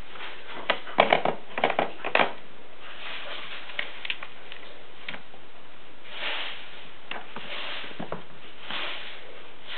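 Kittens batting at a plastic ball-track scratcher toy: a quick run of sharp clicks and rattles about a second in, then scattered ticks and a few soft scuffs.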